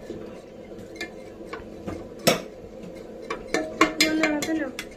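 Wooden spatula stirring rice and water in a metal pressure cooker, with scattered knocks and scrapes against the pot, the loudest about two seconds in.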